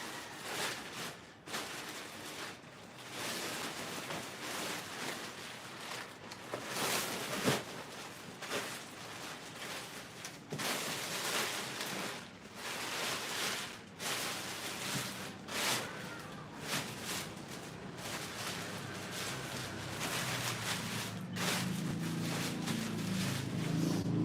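Irregular rustling and scuffing noise that swells and fades. An engine hum grows louder near the end.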